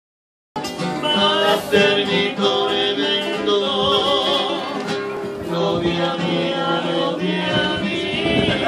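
Two acoustic guitars played live with a voice singing over them; the music starts about half a second in.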